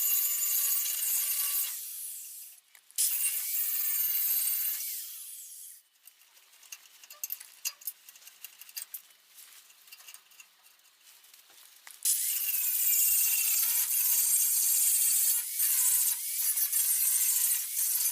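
Angle grinder cleaning rust off steel car bodywork in three runs, about two seconds, two seconds and six seconds long, its motor winding down as each run is let off. Between the second and third runs there is quieter scraping and ticking.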